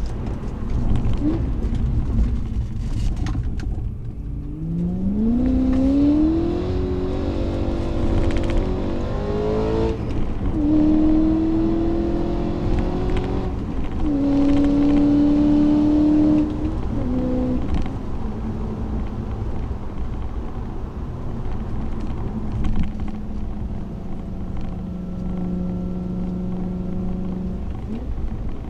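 BMW E92 M3's 4.0-litre V8 pulling hard with a manual gearbox: the engine note climbs, breaks at an upshift about ten seconds in and climbs again, then drops off about sixteen seconds in to a steady low drone, with road and tyre noise underneath.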